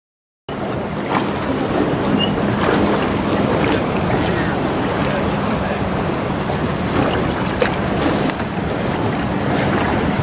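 Wind noise on the microphone, a steady rushing haze over a faint low hum, starting abruptly about half a second in, with a few faint clicks.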